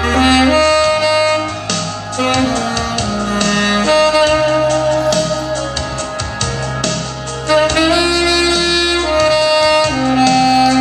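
Instrumental worship music led by a saxophone playing sustained melody notes over a steady bass and beat.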